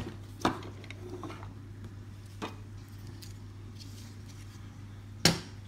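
Plastic toy packaging being handled as the top of a Blume doll pot is opened: a few short clicks and taps, the loudest near the end, over a steady low hum.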